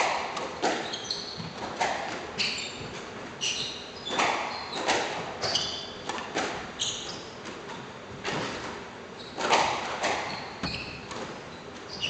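A squash rally: the ball striking the racquets and the court walls in sharp hits about once a second, with sneakers squeaking on the wooden floor between the shots.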